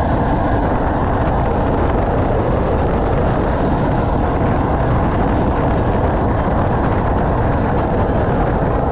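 A motor-driven drain-cleaning machine running steadily, with a faint regular ticking about three or four times a second.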